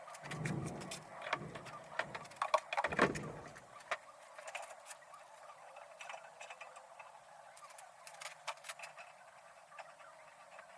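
Clatter of hands handling shop gear: a run of clicks and knocks with a few heavier bumps in the first four seconds, then sparser light ticks.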